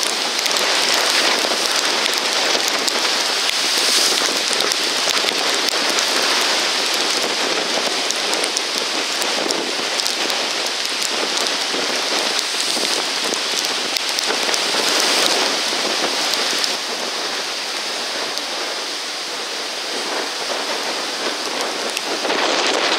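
Tropical-storm weather: heavy wind-driven rain with wind and rough water, heard as a steady, dense hiss that drops somewhat in level about two-thirds of the way through.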